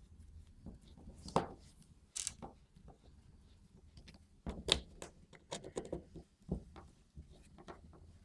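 Scattered clicks and knocks of small parts and tools being handled on a workbench, with two sharper knocks, one about a second and a half in and one near the middle, and a run of lighter ticks after that.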